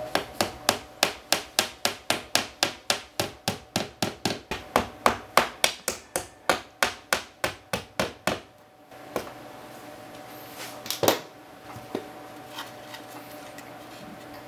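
A hammer striking rapidly and evenly, about three to four blows a second, for around eight seconds. It stops abruptly, and a few single knocks follow.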